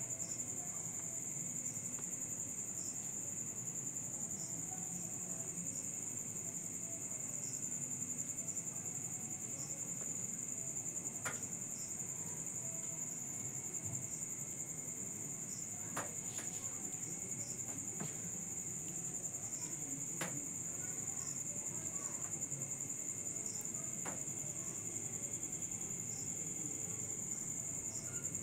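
Crickets trilling steadily in one unbroken high-pitched drone, with a few faint clicks along the way.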